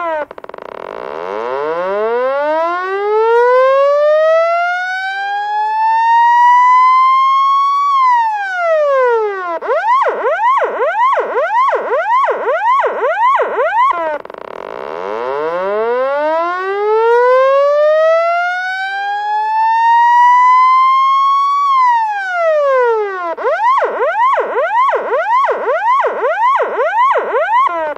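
Electronic police siren cycling between a slow wail, which rises over about eight seconds and then drops, and a fast yelp of rapid up-and-down sweeps. The wail-and-yelp cycle repeats about every fourteen seconds.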